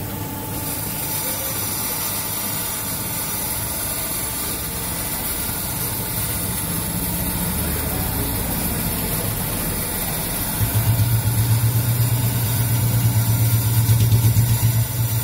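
Grinding machine running with its abrasive wheel spinning under a spray of coolant while the wheel is dressed: a steady machine hum with hiss. About two-thirds of the way through, a louder, fluttering low hum comes in and carries on to the end.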